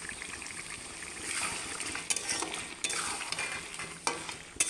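A spatula stirring and scraping chicken and potato pieces in thick masala in a metal kadai, with sharp clinks of the spatula striking the pan three times. A faint sizzle of the frying masala runs underneath.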